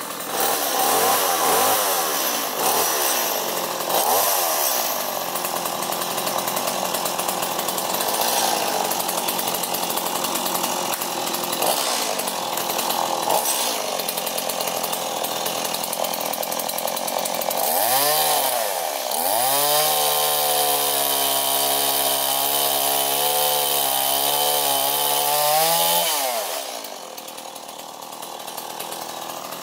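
Two-stroke chainsaw cutting into a tree trunk, its engine revving up and down under load. It then climbs to a high, fairly steady rev for several seconds before dropping back to a lower idle near the end.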